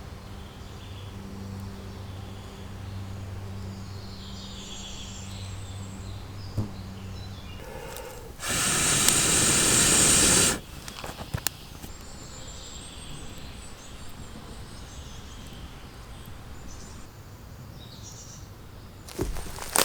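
Birds calling over a low steady hum, then about eight seconds in a loud rushing hiss that lasts about two seconds and stops abruptly, followed by a few sharp clicks.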